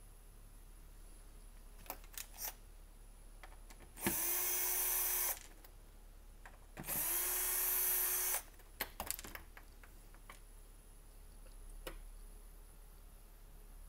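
A small power drill/driver run twice, each time spinning up quickly to a steady whine for about a second and a half, backing the screws out of the brass tag's jig, with a few light clicks of handling in between.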